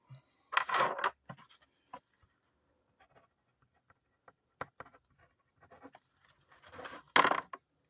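Light handling sounds at a desk: two short scratchy rustles, about half a second in and again near the end, with scattered soft clicks and taps between.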